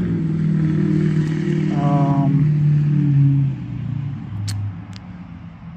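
A motor vehicle engine running loudly, its low hum sliding down in pitch and fading about three and a half seconds in, followed by two light clicks.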